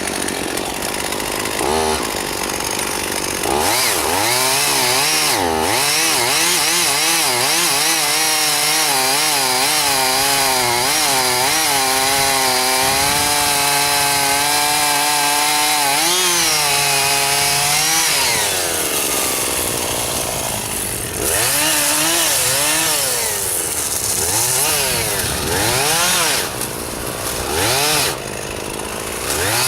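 Chainsaw running at high revs under load, its pitch wavering for about fourteen seconds as it cuts into the wood. About eighteen seconds in the engine falls away toward idle. It is then blipped back up in several short revs near the end.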